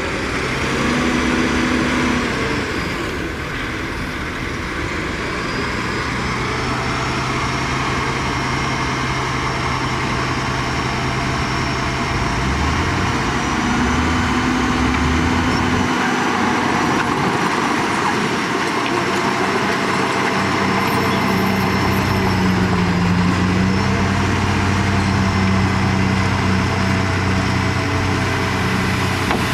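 Heavy diesel engines of earthmoving machinery running under load. The engine note shifts up and down in pitch about halfway through, then settles into a steady drone.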